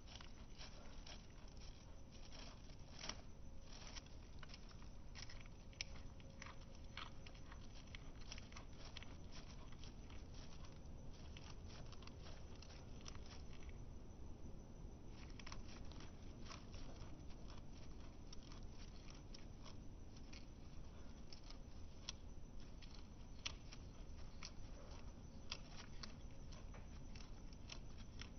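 Skinny pig (hairless guinea pig) chewing hay: a long run of small, quick crunches and clicks, with a brief lull about halfway through.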